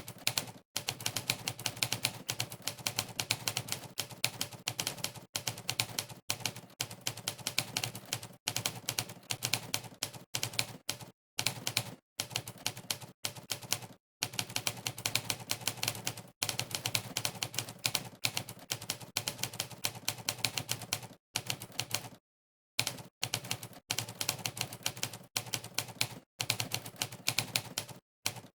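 Monkeytype's typewriter keypress sound effect: a sampled typewriter keystrike for every key pressed during fast typing, in rapid runs broken by brief gaps of dead silence.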